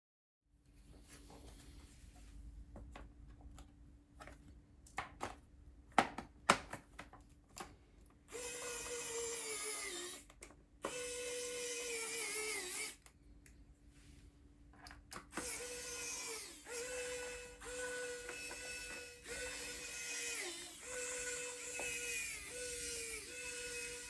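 Small electric screwdriver driving screws in a series of short runs, each with a steady whine whose pitch drops at the end of the run, after a few sharp clicks of parts being handled.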